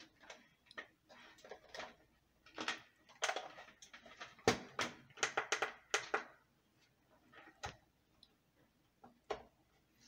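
Hands handling a digital multimeter and its test leads on a workbench: an irregular run of clicks, knocks and short rustles, busiest in the middle.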